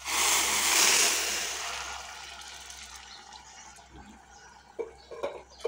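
Hot water poured from a steel bowl into a pressure cooker onto hot fried chicken, potatoes and masala, a splashing, sizzling rush that is loudest at first and dies away over two or three seconds. A few light metal clicks near the end.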